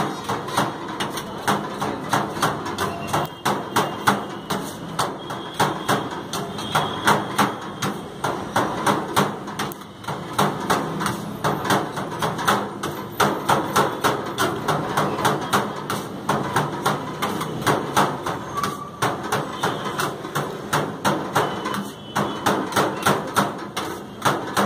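Metal spatulas chopping and tossing shaved shawarma chicken on a stainless-steel tray: a fast, uneven clatter of metal-on-metal strikes, several a second, in runs with short breaks.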